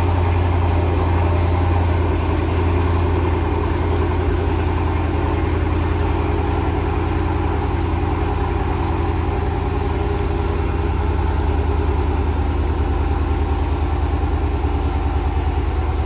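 2013 Dodge Challenger's 6.4-litre HEMI V8 idling steadily at about 1,250 rpm. The car has a reported misfire at idle, logged on cylinder 3.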